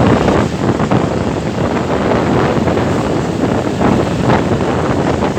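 Loud wind buffeting the microphone over road traffic noise, a steady rushing with no horn tune heard.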